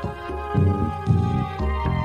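Instrumental contemporary Christian music: sustained chords over a bass line that moves to a new note about every half second, with no singing.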